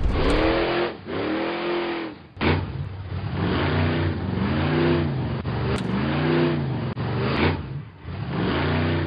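Monster truck engine sound effect, revving over and over, its pitch rising and falling in repeated swells about once a second.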